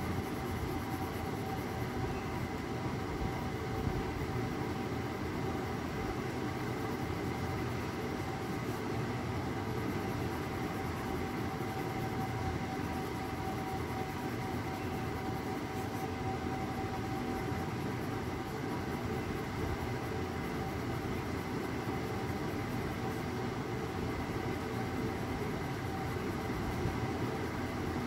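Steady low rumble of background noise with a faint, constant whine over it, unchanging throughout.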